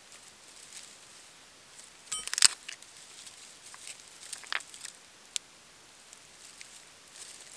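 A freshly lit dry-grass tinder nest burning, with faint crackles and the rustle and snap of dry twigs being pushed into the flame. Sharp scattered ticks, the loudest a click about two and a half seconds in.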